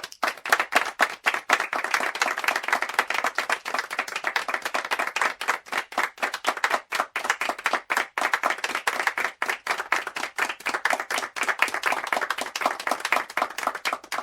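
A group of people applauding: many hands clapping at once, dense and irregular, starting suddenly at full strength.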